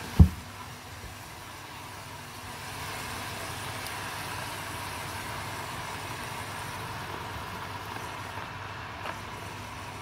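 Water-activated flameless food heater reacting inside a meal pouch, giving off a steady steaming hiss that grows a little louder about two and a half seconds in. A single thump just at the start.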